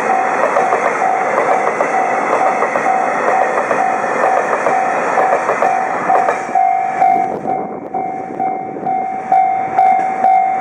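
Freight train wagons running past over the rails, with a level-crossing warning bell sounding a repeated ding about twice a second. The train noise drops away about six and a half seconds in, leaving the crossing bell ringing with a few clacks.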